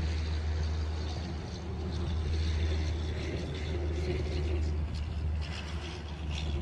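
Wind rumbling on the microphone: a steady low roar with a faint hiss above it.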